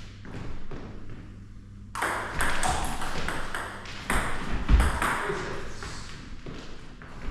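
Table tennis ball clicking back and forth in a rally, bat and table strikes in quick succession, with a heavier thump about two thirds of the way in.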